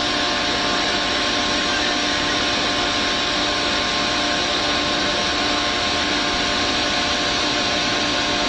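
Heavy machinery running steadily, plausibly the mobile crane's engine and hydraulics holding the load: a constant hiss with a steady whine over it.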